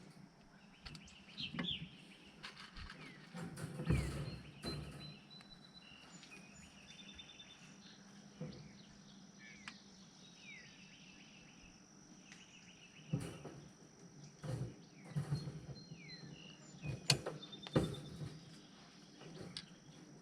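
Scattered light metallic clicks and taps from wire cage clips being hooked and twisted onto a rabbit cage's wire mesh panels. Behind them, birds chirp with short falling calls and trills, over a steady high insect drone.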